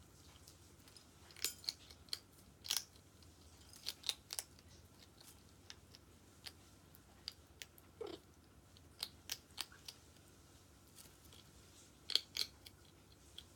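A meerkat crunching dry kibble from a ceramic bowl: irregular sharp crunches and clicks, a few each second with short pauses between. The loudest crunches come a little after twelve seconds in.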